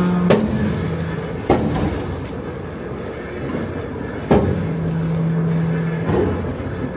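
Railway machinery running: a steady low hum that stops and starts again, over constant mechanical noise, with four sharp clanks a second or more apart.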